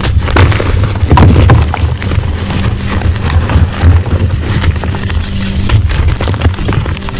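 Blocks of dyed gym chalk being crushed and crumbled, a dense run of crunching and crackling snaps over a steady low hum.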